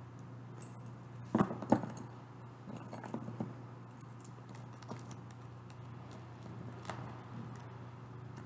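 A bunch of keys jangling and clicking as they are handled, in scattered rattles with two sharper knocks about a second and a half in, over a steady low hum.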